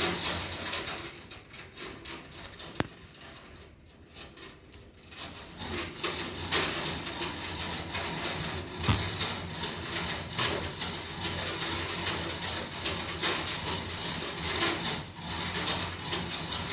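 Scraping and rubbing of a cement mixer being shifted and slid up onto a vehicle, with a sharp knock about three seconds in and a dull thud about nine seconds in.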